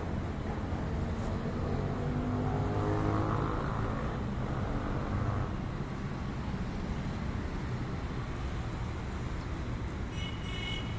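Road traffic: a steady low rumble, with a motor vehicle swelling and fading as it passes between about two and five seconds in. A short high squeak comes near the end.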